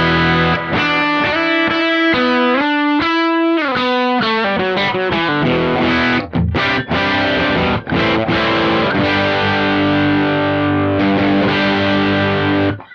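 Semi-hollow electric guitar played through a Kemper Profiler amp profile with its compressor stomp off: overdriven chords and single-note runs, one falling run of notes a few seconds in. The profile's amp is itself driven and compressing. The playing cuts off near the end.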